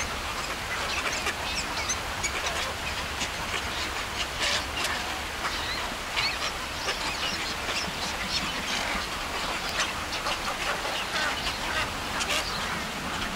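A flock of waterbirds calling: many short, overlapping calls throughout, over a steady background hiss.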